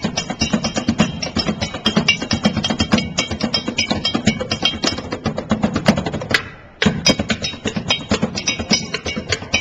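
Junk percussion played fast with sticks: metal pans, black plastic drums and other found objects struck in a dense, driving rhythm. The beat breaks off for about half a second roughly two-thirds of the way through, then comes straight back in.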